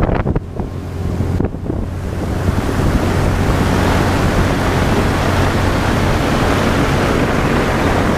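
Small aluminum boat under way: a steady motor hum under wind buffeting the microphone and water rushing past the hull. A few sharp knocks come in the first second and a half.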